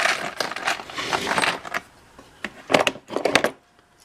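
Metal hand tools clinking and clattering as they are rummaged through and lifted out of a plastic toolbox, with a burst of sharper knocks between two and three and a half seconds in.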